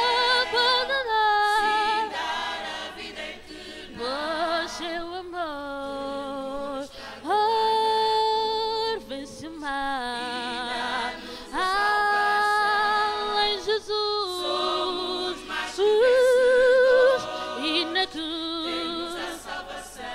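Small mixed choir singing a gospel song a cappella, with long held notes, some with vibrato, and short breaks between phrases.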